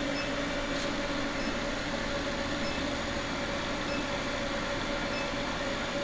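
Steady whir of a blower running in a blacksmith shop, an even rushing drone with a constant hum and no hammer blows.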